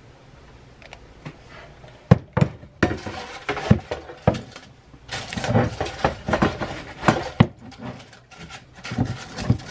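Kitchenware being handled: a run of irregular knocks and clatter, with stretches of rustling, starting about two seconds in.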